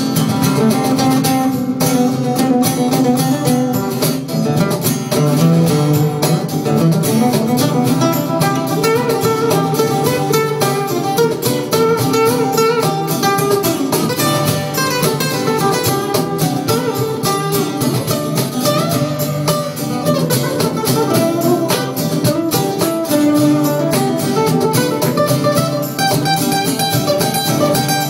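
Instrumental break of a live song, led by guitar playing quick plucked notes over a steady accompaniment.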